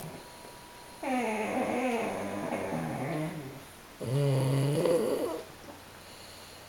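A sleeping flat-faced dog snoring: two long, wavering, pitched snores, the first about a second in and a louder, shorter one about four seconds in.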